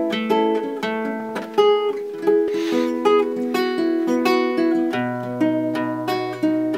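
Classical acoustic guitar played solo: an instrumental intro of picked single notes and chords in a lively rhythm, with a low bass note ringing under the melody near the end.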